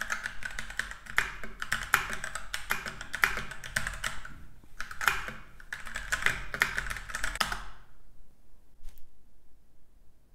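Typing on a mechanical keyboard with brown tactile switches, heard from about an arm's length away: a fast run of key clicks with a short break about halfway through, stopping about three-quarters of the way in, then one faint last click.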